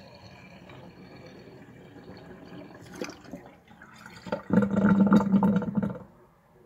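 Water running down a stainless steel sink drain, trickling faintly at first, with a sharp tap about three seconds in. The drain then gurgles loudly for about a second and a half as the last of the water goes down with air.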